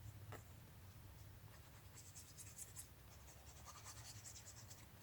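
Near silence, with faint scratchy rustling of paper being handled, clearest two to three seconds in.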